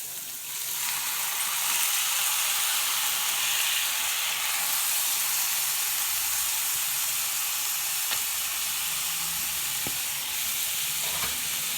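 Rice going into a hot pan of grated onion frying in oil with chicken liver and gizzards, sizzling steadily; the sizzle swells about half a second in as the rice lands. A couple of faint clicks sound later on.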